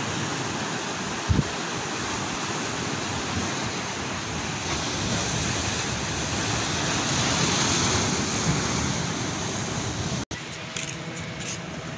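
Steady rush of wind and sea water, with wind buffeting the microphone and a brief low thump about a second in. It breaks off sharply near the end into a quieter background.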